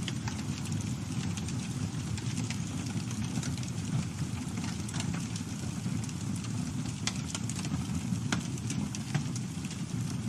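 Wood campfire burning: a steady low rumble with frequent crackles and pops, a few sharper snaps in the second half.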